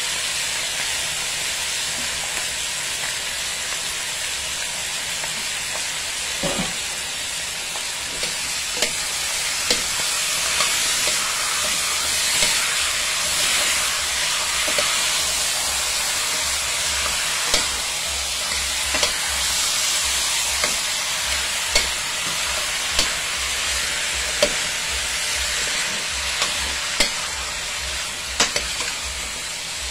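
Chicken drumlets frying and sizzling in curry in a steel pot, with a spoon knocking and scraping against the pot as the pieces are stirred. The knocks come every second or two from about six seconds in.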